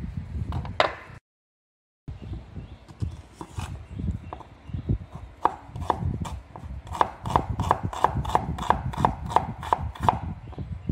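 Kitchen knife slicing an onion on a wooden chopping board, the blade knocking on the board in a quick, even run of about four cuts a second through the second half.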